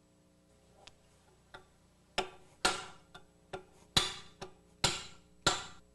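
A hammer strikes a steel drift set against the outer steel sleeve of a lower control arm bushing, driving the sleeve in to collapse it into the control arm's bore for removal. A couple of light taps come first, then about eight hard metallic strikes from about two seconds in, roughly two a second, each ringing briefly.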